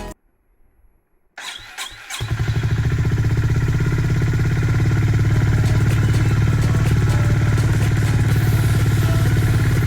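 Honda GB350S's single-cylinder air-cooled engine turned over on the electric starter about a second and a half in, catching quickly and settling into a steady idle, just after its spark plug has been replaced.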